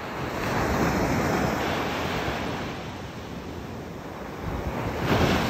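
Surf breaking on a sandy beach, a steady wash of noise that swells twice: once about a second in, fading over the next few seconds, and again near the end.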